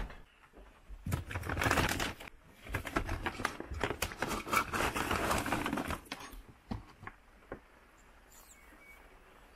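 Plastic bags rustling and crinkling as hands rummage in a cupboard, with dry dog kibble rattling as it is scooped from its bag, in two loud bouts in the first six seconds before it goes quiet.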